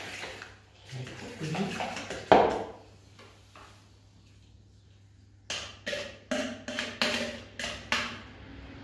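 Fork clattering in a plastic mixing bowl of beaten egg and chard, with one loud knock about two seconds in. Near the end comes a run of about eight sharp knocks, two or three a second, as the bowl is tapped and scraped to empty the egg mixture into an aluminium baking tray.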